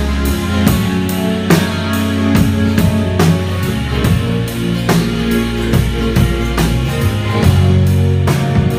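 Instrumental break in a rock song: a drum kit keeps a steady beat under bass and guitar, with no singing.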